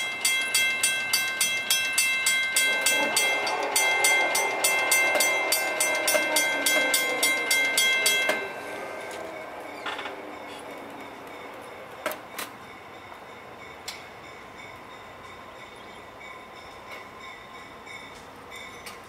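Railroad grade-crossing warning bell ringing about twice a second, stopping abruptly about eight seconds in. From about three seconds in, a distant locomotive horn sounds beneath it, sliding slowly down in pitch.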